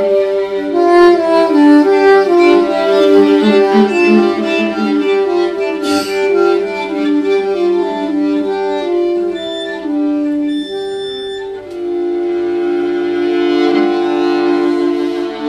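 Live violin, viola and soprano saxophone trio playing a free improvisation in a klezmer and Bulgarian folk vein. Quick moving melodic lines give way to long held notes about twelve seconds in.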